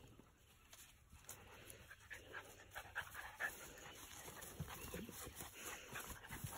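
Faint sounds of puppies playing: light panting and small scuffles, getting busier from about two seconds in as they begin to wrestle.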